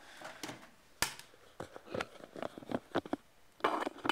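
A series of small clicks and knocks from objects being handled against a hard surface, with a sharper knock about a second in and a short burst of noise near the end.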